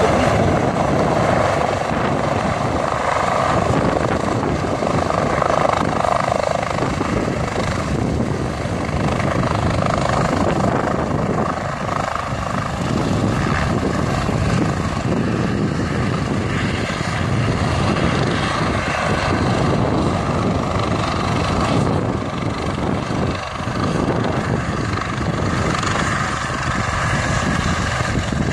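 Air-ambulance helicopter's rotor and turbine noise, running steadily, loudest in the first few seconds.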